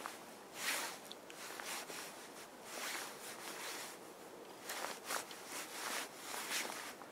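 Nylon jacket fabric rustling with arm movements: several short, sharp swishes over a steady faint outdoor hiss.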